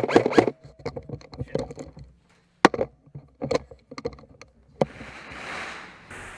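Airsoft rifle fire: a quick string of sharp cracks at the start, then scattered clicks and single cracks, and a soft rushing noise near the end.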